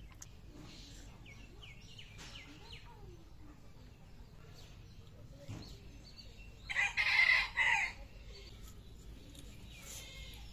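A rooster crowing once, about seven seconds in, loud and lasting a little over a second.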